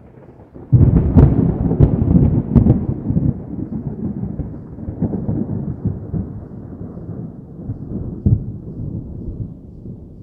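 A thunderclap: a sudden loud crash under a second in, with a few sharp cracks, then a long rolling rumble that slowly dies away.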